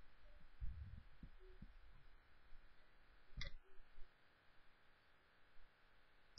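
Near silence: room tone with a few faint low thumps in the first second and a half and one short click about three and a half seconds in.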